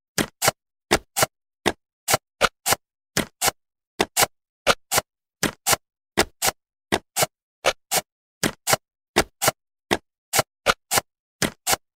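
Jigsaw-puzzle pieces clicking into place: a steady run of short, sharp clicks, often in pairs, two or three a second.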